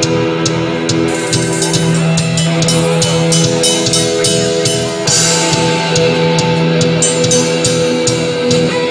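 Rock band playing an instrumental passage: guitar holding sustained chords over a drum kit beating steadily, with a cymbal crash about five seconds in.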